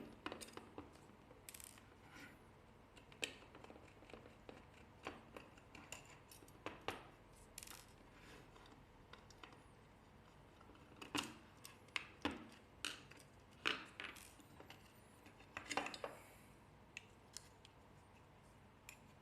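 Irregular light clicks and small metallic taps of hand tools, screws and plastic parts being handled while a device is taken apart to replace its main board, with a busier run of louder clicks over several seconds near the middle.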